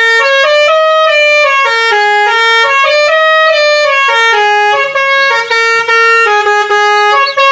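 Musical air horn on an Eicher Tourister minibus playing a tune, the same horn fitted to full-size 49-seat tourist buses. It plays a loud run of reedy, sustained notes that step up and down a few times a second.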